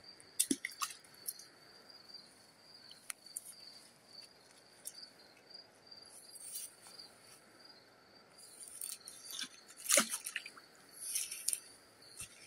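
Insects calling in one steady, high continuous tone, with scattered close rustles and crunches of handling. The loudest of these comes about ten seconds in.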